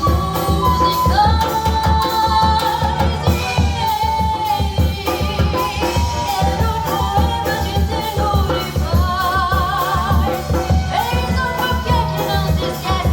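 A samba played by a small group: a woman singing over flute, nylon-string guitar and hand percussion, with a steady pulsing beat.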